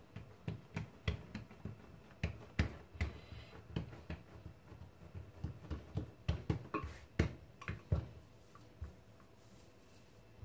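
Hands patting and pressing a layer of date paste flat onto rolled semolina dough, a run of irregular soft slaps and taps that dies away about eight seconds in.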